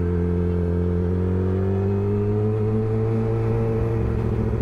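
Yamaha R6 sport bike's inline-four engine running steadily at low revs, its pitch creeping up slightly through the middle.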